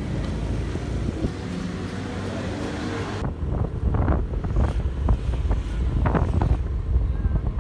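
Outdoor street noise with motorbikes passing over a low traffic rumble. About three seconds in it changes to wind buffeting the microphone in gusts over a low road and engine rumble, as from a moving vehicle.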